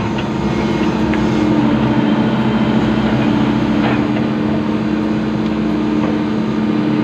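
Excavator's diesel engine running steadily under working load, with a couple of brief knocks about one and four seconds in.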